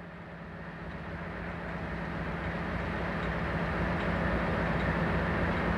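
InterCity 225 electric train (Class 91 locomotive with Mark 4 coaches) approaching, its running noise growing steadily louder, with a steady low hum underneath.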